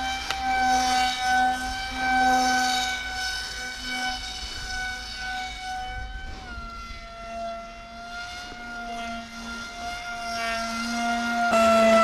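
Electric motor and propeller of a small foam RC plane running with a steady high whine. The pitch drops a step about six seconds in and shifts again near the end as the throttle changes.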